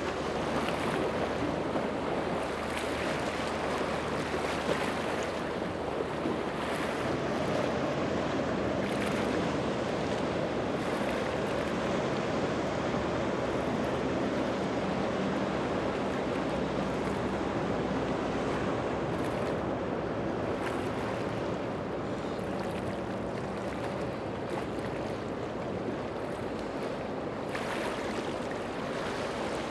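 Motorboat running through water: a steady rush of water and wind with a low, even engine drone underneath.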